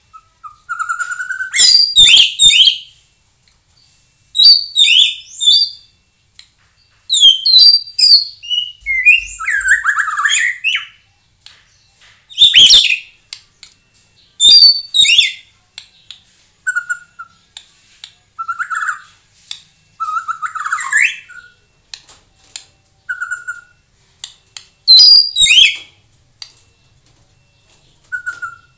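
White-rumped shama singing: short loud phrases of high whistles mixed with sharp chattering notes, broken by pauses of a second or so, with quieter single whistles in between.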